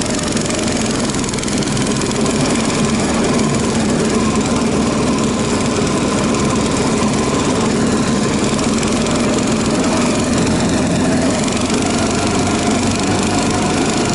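Small petrol vehicle engine running steadily under way, its pitch rising slightly near the end.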